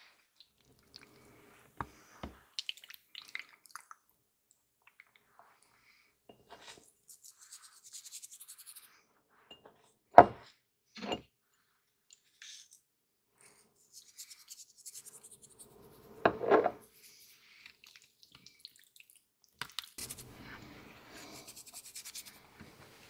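Kitchen food-preparation sounds: scattered light clicks and clinks of dishes and utensils, two sharp knocks about ten seconds in, a louder knock with rustling around sixteen seconds, and rustling or scraping near the end.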